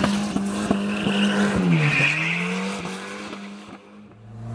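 Volvo 940 Turbo's turbocharged four-cylinder engine held at steady revs through a drift with free-flowing exhaust, tyres squealing on asphalt. The revs drop briefly about two seconds in, then climb again before the sound fades out. Just before the end a lower, steadier engine note comes in.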